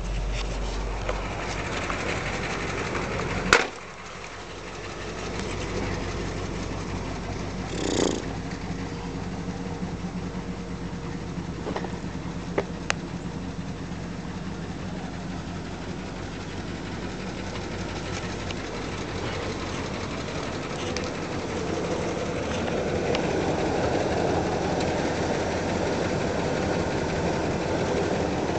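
Ford F-250 pickup's engine running steadily, with a sharp click about three and a half seconds in, after which the sound briefly drops before building back. A few light knocks follow, and the sound swells near the end.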